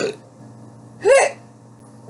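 A short, high-pitched burp about a second in, its pitch rising then falling, just after a longer, rougher burp ends.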